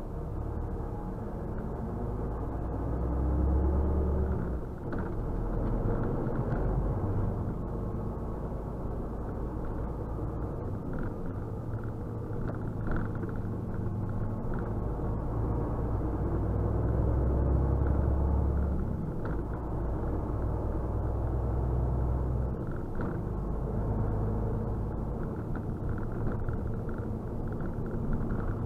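Semi-truck's diesel engine and road noise heard inside the cab while driving through town, a steady low rumble that grows heavier a few seconds in and again a little past midway as the engine pulls harder.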